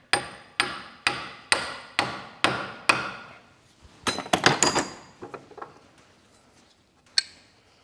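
A hammer driving a brass punch against a stuck part of a Massey Ferguson 20 power steering cylinder: about seven sharp, ringing metal blows at a steady pace of roughly two a second, then a quick flurry of lighter taps, and one last blow near the end.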